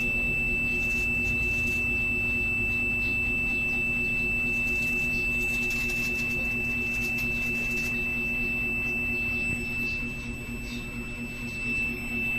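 The buzzer of an Arduino alarm clock sounding its alarm as one steady, unbroken high-pitched tone, over a faint low hum.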